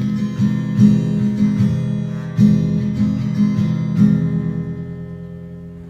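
Background music: an acoustic guitar strumming chords after the vocal has ended, a last chord about four seconds in left ringing and fading out as the song ends.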